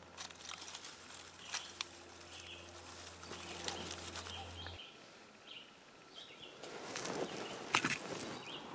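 Hands settling twigs and a bark tinder bundle with a few light snaps and clicks, then a person blowing on a smouldering ember in the tinder nest, the breath noise building over the last two seconds as the bundle begins to smoke. Birds chirp faintly.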